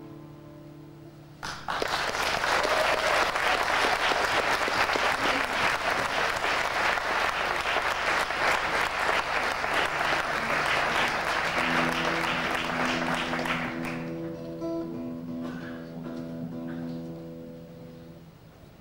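Acoustic guitar's last notes ringing out, then audience applause starting suddenly about a second and a half in, running steadily and fading away after about twelve seconds. As the clapping dies, a few held notes are picked on the acoustic guitar.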